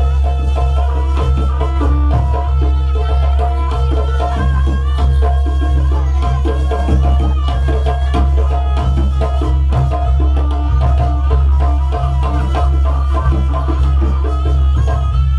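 Live jaranan music from a Javanese folk ensemble: drums keep up a driving beat under a repeating melody of short, ringing pitched notes, over a heavy, unbroken bass.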